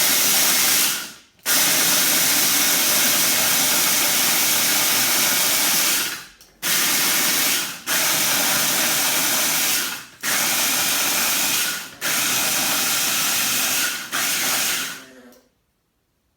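Electric grinder motor running with dry dog kibble inside, pulverising it to powder. It is run in long pulses: it cuts off and spins down briefly several times, restarting each time, then stops about a second before the end.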